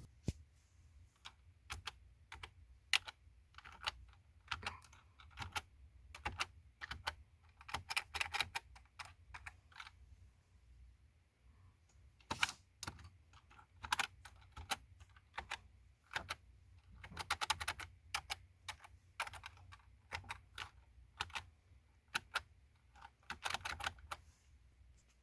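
Keyboard keys being pressed: scattered single clicks and quick flurries of clicking, like typing in bursts.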